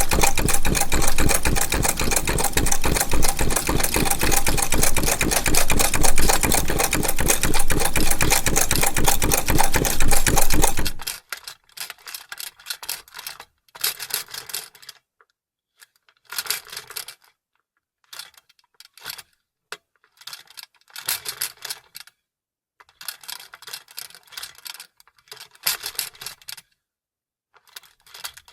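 Vintage sewing machine stitching at speed, a loud, fast, even clatter that stops about 11 seconds in. After that it runs in short, quieter stop-and-start spurts with silent pauses between.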